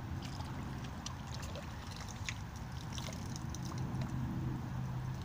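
Creek-side ambience with small splashes of shallow water and light crackles of brush being moved through, over a steady low rumble.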